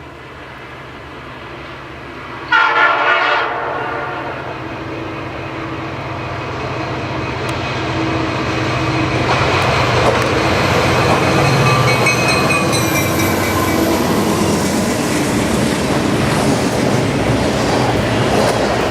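A CN SD75I diesel locomotive's five-chime Nathan Airchime P5 horn sounds about two and a half seconds in, loudest at first and carried on for about ten more seconds, as the freight train approaches at speed. The rumble of the diesel engines and the wheels on the rails grows steadily louder as the locomotives pass and the cars follow.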